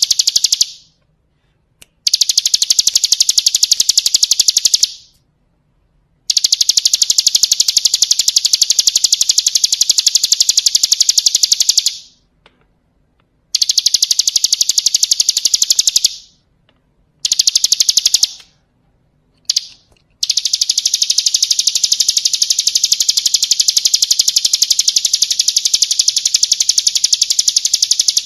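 Bar-winged prinia (ciblek kristal) singing high, very rapid drill-like trills ("ngebren") in repeated bouts of a few seconds each, broken by short pauses. The longest bout comes in the last third.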